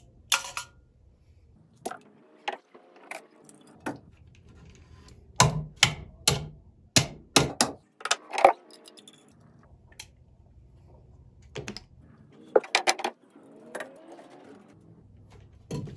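Screwdriver and pliers clicking and knocking against a steel electrical junction box as its knockouts are worked open. Scattered sharp metallic taps, with a dense run of them in the middle and another quick cluster later on.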